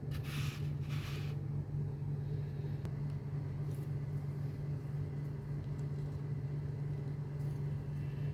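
Steady low hum, with two short scratchy rustles in the first second and a half and a few faint ticks later.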